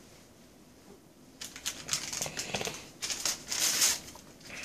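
Crinkling and rustling of handled paper or plastic, in quick crackly bursts that start about a second and a half in and go on for close to three seconds.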